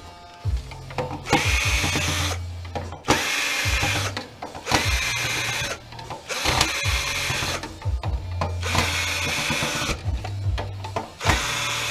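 Cordless drill/driver running in about six short bursts of roughly a second each, with brief pauses between, as it backs screws out of a projection TV's lens assembly and metal frame.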